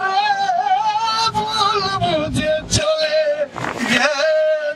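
A man singing long, drawn-out notes with a wavering vibrato into a handheld microphone. The pitch slides down about halfway through and is then held on a lower note, broken twice by short pauses.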